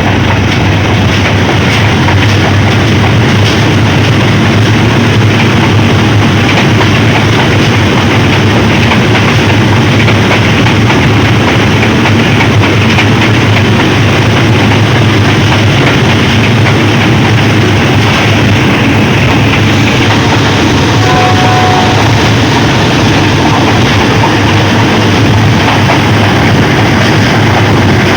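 Jaffar Express passenger train running: a loud, steady, deep rumble and rush from the locomotive and carriages, with no breaks.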